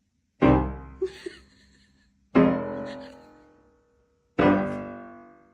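Music: three loud, deep piano chords struck about two seconds apart, each left to ring and fade out.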